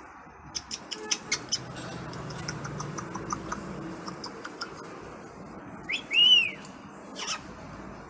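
African grey parrot making a run of quick clicks, then one loud whistle that rises and falls about six seconds in, followed by a short sharp call.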